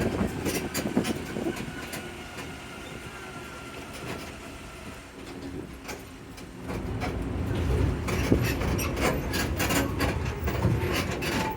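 Zoomobile tram with open passenger cars, its motor running low and the cars rattling with many clicks and knocks. It gets louder from about seven seconds in.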